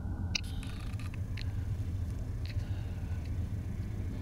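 Freight train rolling steadily past, a continuous low rumble of steel wheels on rail, with a few light clicks in the first second or so.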